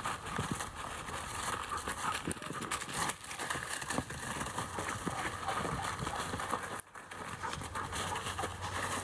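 Footsteps and a husky's paws crunching and shuffling through dry fallen leaves, with many small crackles. The sound briefly cuts out about seven seconds in.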